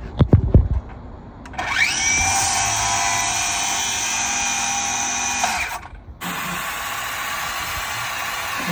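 A few sharp knocks, then a power tool's electric motor spins up with a quick rising whine and runs steadily for about four seconds before stopping. It is followed by a different steady machine noise.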